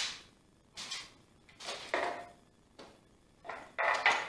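Bessey Revo parallel clamps being loosened and slid off a dried glue-up: a sharp click at the start, then a string of short scraping and clattering noises from the clamp heads and bars, about one a second.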